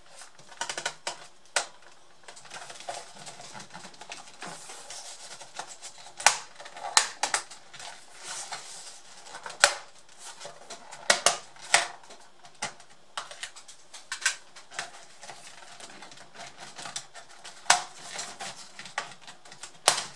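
Plastic snap clips of a Samsung NP550 laptop's bottom cover clicking as the cover is pried loose by hand: irregular sharp clicks and light knocks, with several louder snaps.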